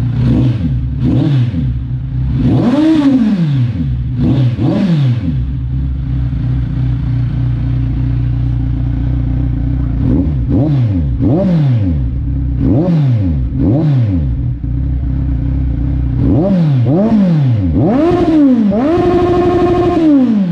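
Kawasaki Ninja 1000's inline-four engine revving through an aftermarket SC Project titanium exhaust, stationary: sharp throttle blips that rise and fall back to a steady idle. There are about five in the first five seconds, four more after a stretch of idle, then a last cluster in which the revs are held for about a second and a half before they drop back near the end.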